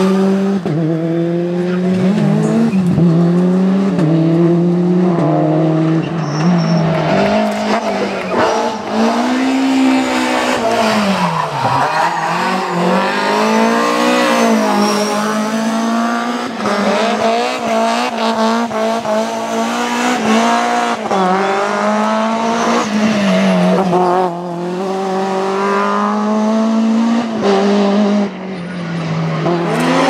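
Rally cars driven flat out one after another, their engines held at high revs with sharp rises and drops at gearchanges and lifts. Around the middle and near the end the pitch sweeps up and falls away as cars pass close by.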